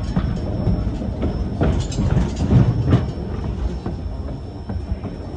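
White Pass & Yukon Route narrow-gauge passenger train rolling along the track: a steady low rumble with irregular clicks and knocks from the wheels on the rails, most of them about two to three seconds in.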